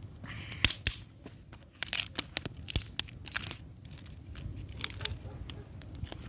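Dry sticks and twigs being handled and laid onto a small campfire, giving irregular sharp snaps and crackles. There are brief rustling, crunching stretches, and the loudest snaps come about a second in.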